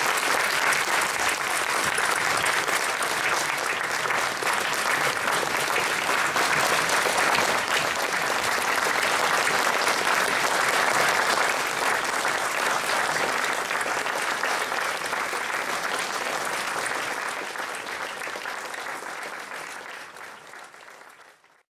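Audience applauding: sustained clapping from a hall full of people, steady at first, then slowly dying away over the last several seconds.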